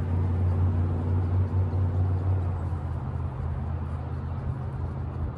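A steady low hum from a running vehicle engine, over wind noise.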